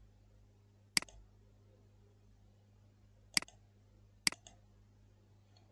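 Three sharp computer mouse clicks, each with a faint second tick just after. The first comes about a second in and the other two come close together near the end, over a faint steady low hum.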